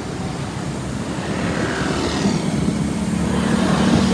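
Wind rushing on the microphone and road traffic while riding a bicycle along a highway. A steady engine hum grows louder over the last couple of seconds, as a vehicle comes near.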